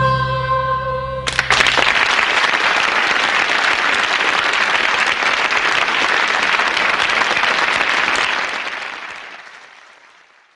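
The song's final held chord ends about a second in, and applause breaks out at once, clapping steadily and then fading away over the last two seconds.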